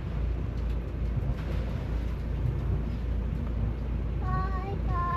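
Steady low rumble and hiss of a sailboat under way. Near the end, a brief high-pitched voice-like call.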